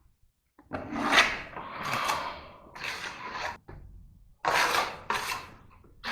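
Hand-tool scraping during drywall work: a run of rough scraping and rubbing strokes begins about a second in, then two more sharp scrapes near the end.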